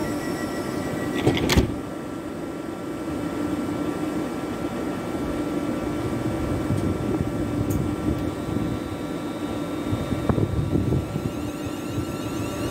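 Electric multiple-unit passenger train standing at the platform, its onboard equipment giving a steady hum. A single sharp click comes about a second and a half in, and a faint higher whine starts near the end as the train begins to move off.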